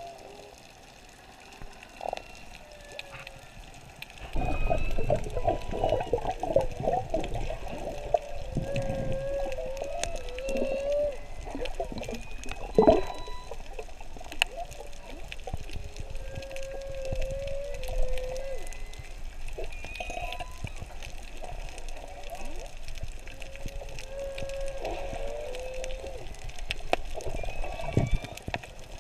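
Whale calls heard underwater: wavering moans that rise and fall, with higher squeaks between them. Under them runs rushing water noise that grows markedly louder about four seconds in, with a sharp knock a little before the middle.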